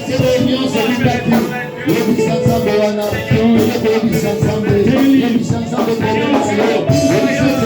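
Music with singing voices and shaker-like percussion, played and sung during congregational prayer.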